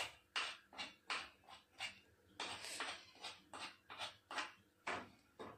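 Metal spoon scraping and scooping a thick fried mixture against a wok, in a run of short strokes about two or three a second, with one longer scrape about two and a half seconds in.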